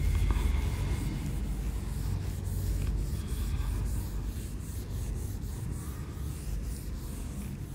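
Whiteboard eraser rubbing marker writing off a whiteboard in repeated quick wiping strokes, over a steady low hum.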